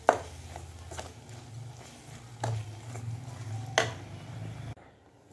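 A steel ladle scraping and knocking against a steel cooking pot as thick fish-curry masala is stirred, starting to stick to the bottom. There are about four sharp knocks over a low hum, and the hum cuts off suddenly near the end.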